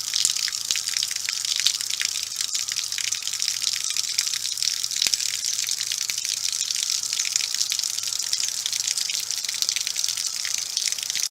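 Water spraying hard out of an RV's city water inlet, a steady loud hiss that cuts off suddenly. The inlet's check valve has been broken and disabled, so water from the onboard pump shoots back out through the connection.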